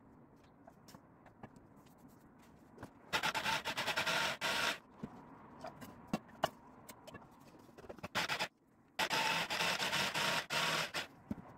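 Electric hand blender with a chopper attachment, run in two short pulses of a few seconds each to grind crumbly flour-and-butter dough into fine nut-like crumbs. Between the pulses a metal spoon scrapes and scoops crumbs in a ceramic bowl.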